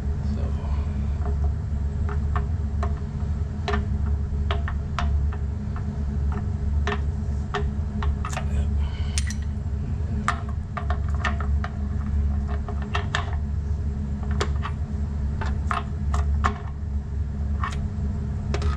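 Irregular metallic clicks and taps from a hand wrench as the anode rod is turned into the water heater tank by hand. The clicks sound over a steady low hum.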